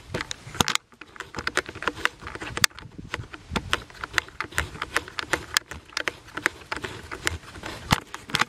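Irregular light clicks and taps of small objects being handled, several a second, with a short pause about a second in.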